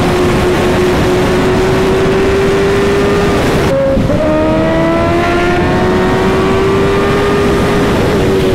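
Sportbike engine pulling hard at high speed, with heavy wind rush on the helmet-cam microphone. The engine tone holds steady and creeps up in pitch. About four seconds in the sound changes abruptly, then the engine pitch climbs steadily as the bike accelerates again.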